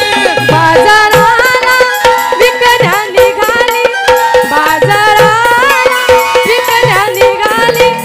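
Instrumental passage of a Marathi folk song: a melodic instrument plays quick, gliding phrases over a steady hand-drum beat.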